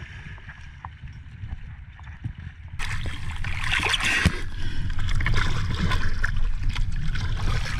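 Seawater sloshing and splashing around a camera held at the surface, muffled for the first few seconds, then louder rushing and splashing from about three seconds in.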